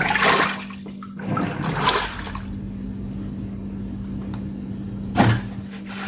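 Water draining out of the tub of a Sharp single-tub top-loading washing machine, over a steady hum. A brief louder splash comes about five seconds in.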